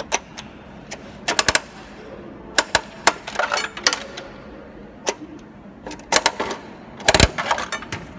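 Coin mechanism of a bouncy-ball vending machine turned by hand: short bursts of ratcheting metal clicks and rattles, with the loudest knock about seven seconds in.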